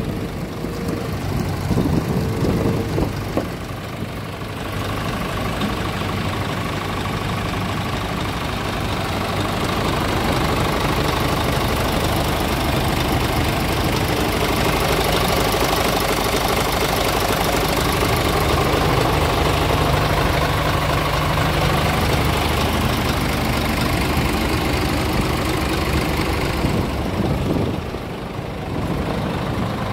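Scania R450 tractor unit's 13-litre straight-six diesel idling steadily, getting louder a few seconds in and dropping back near the end.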